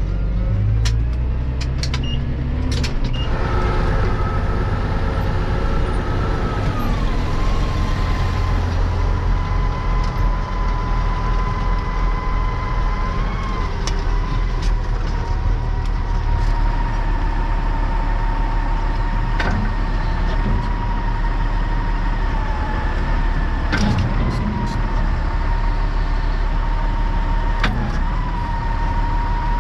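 Massey Ferguson 6499 tractor running as it drives, a steady engine drone with a whine over it that drops in pitch about seven seconds in and then holds steady. A few sharp knocks and clicks come through.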